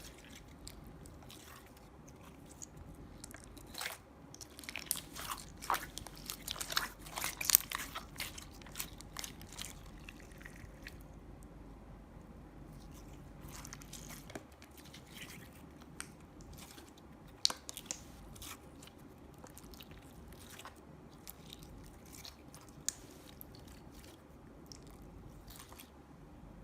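Slime being mixed and squeezed by hand, giving many sticky clicks and crackling pops. They come thickest in the first half, with a few sharp louder pops later on.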